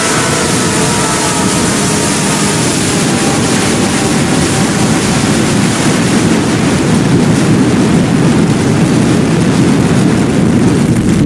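Loud, harsh, distorted noise used as a scary sound effect, a dense steady rumble like a roaring engine that grows slightly louder; faint steady tones in it fade out in the first couple of seconds.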